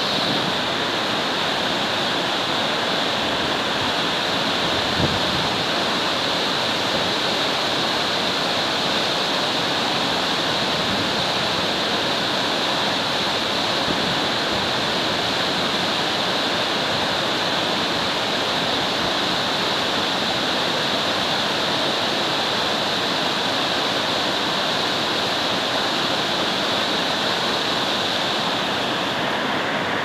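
River water cascading over a series of rock ledges and boulders in a waterfall, a steady, unbroken rushing and splashing.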